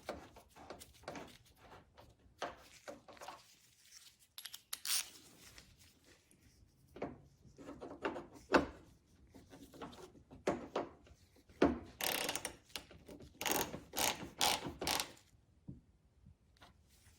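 Irregular mechanical clicking and ratcheting from a hand tool and door-handle parts being worked, with a thicker cluster of clicks near the end.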